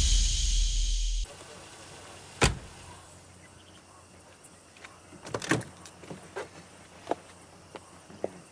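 A loud rushing hiss with a deep hum cuts off abruptly about a second in. After it, a quiet background carries a handful of scattered short knocks and clicks, the clearest about two and a half seconds in and a cluster around five and a half seconds.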